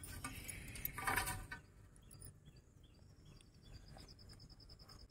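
A brief faint rustle of handling, then an insect chirping faintly in a rapid, evenly pulsed high trill from about three seconds in.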